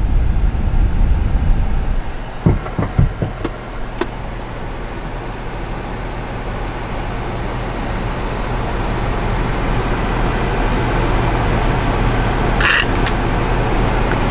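Steady road and engine noise of a moving car, slowly growing louder, with a few short knocks about two to four seconds in and a brief hiss near the end.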